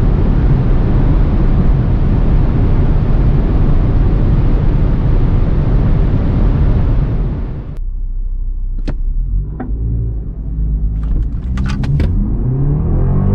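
Inside the cabin of a BMW 330e xDrive Touring near its top speed, loud wind and road noise over its 2.0-litre four-cylinder turbo engine, which cuts off abruptly about eight seconds in. A quieter engine tone with a few sharp clicks follows, and near the end the engine revs up as the car pulls away from a launch-control start.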